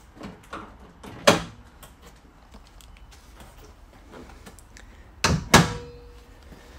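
A single sharp knock about a second in, then the Subaru Legacy's bonnet slammed shut near the end: two hard bangs close together with a short metallic ringing after.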